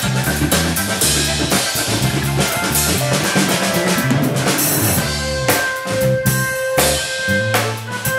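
Live instrumental trio playing: a drum kit with cymbals and snare, an electric bass line, and an electric organ. One note is held for about two seconds past the middle.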